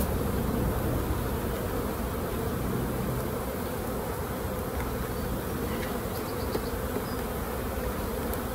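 Steady buzzing hum of a honeybee colony, with many bees flying over and around an open hive. The colony has just been shaken onto fresh frames in a shook swarm, and its disturbed flying bees are still in the air.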